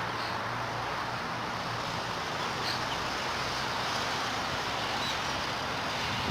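Steady outdoor background noise: an even hiss with a faint low hum underneath, unchanging throughout.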